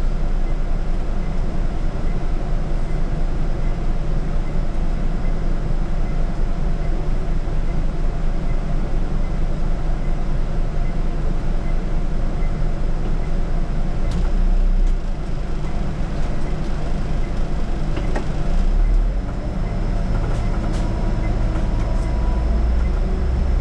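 Scania city bus under way, its engine and rolling noise heard from the driver's seat as a steady low rumble. The low rumble swells briefly twice, about two-thirds and four-fifths of the way through.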